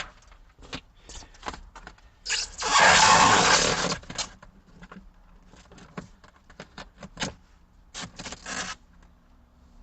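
Backing paper being peeled off a self-adhesive sound-deadening mat, with one long ripping noise starting a little over two seconds in. Shorter crinkles and scrapes come from handling the mat.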